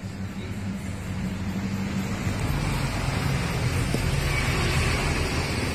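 A motor vehicle running on the road, a steady low engine hum with road noise, growing louder from about two seconds in.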